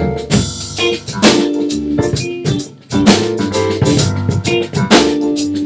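Band music: a drum kit playing a groove with guitar and keyboard, with a brief break about three seconds in.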